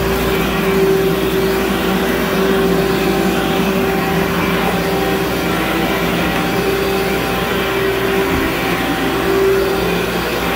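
Upright carpet extractor running steadily as it is pushed across carpet, its motor giving a continuous drone with a few held tones.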